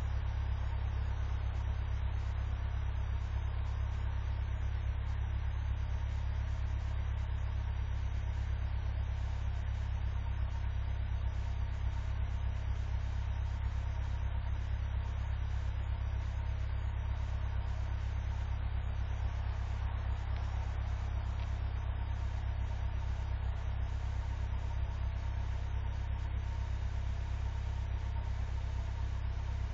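Cold vehicle engine idling steadily at eight below zero, warming up after a hard start: a deep, even hum.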